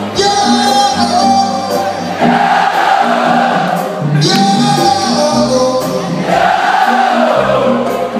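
Live band music heard from the audience: a male singer over a steady bass line and percussion, with many voices singing along.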